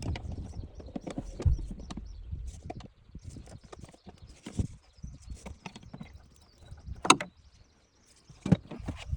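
Scattered clicks, taps and knocks of hands and tools working a car's plastic interior cover panel loose, with a sharp snap about seven seconds in and another knock near the end.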